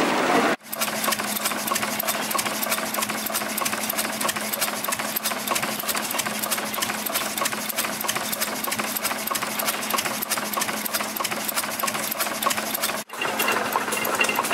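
Vintage stationary engine with a large flywheel running, a fast, even mechanical clatter of ticks over a steady hum. It starts abruptly about half a second in and stops abruptly near the end.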